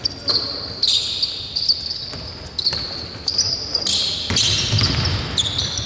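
Basketball shoes squeaking on the court floor in repeated short, high squeals as players move, with the basketball bouncing now and then.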